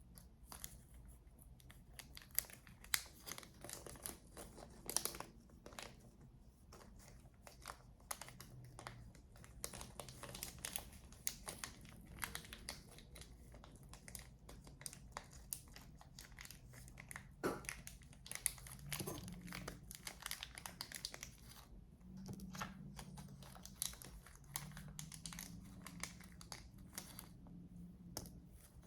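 Scattered small clicks, ticks and crinkling of hands handling computer parts while small screws are fitted to an NVMe SSD adapter card.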